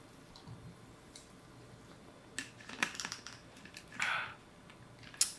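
A man drinking from a bottle during a quiet pause: a few faint clicks from the bottle and his mouth, then a short breath out about four seconds in and a sharp mouth click just before he speaks again.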